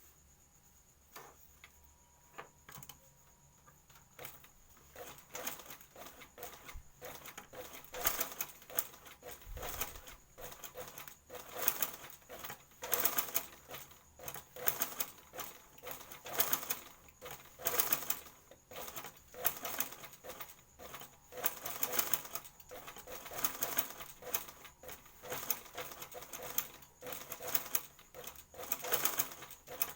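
Sewing machine stitching a skirt hem in short runs, a rapid clicking that starts a few seconds in, grows louder and speeds up and slows in waves every second or two.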